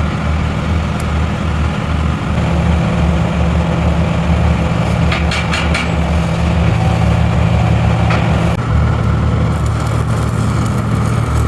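An engine idling steadily, with a few sharp clicks about five to six seconds in.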